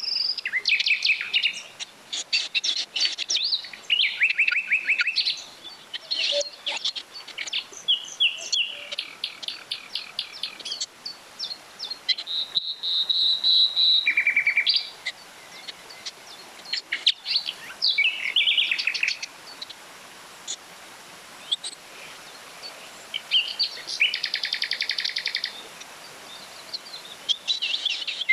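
Several songbirds singing in a forest chorus: rapid chirp series, trills and a held whistled note, one phrase after another, over a faint steady hiss of running stream water.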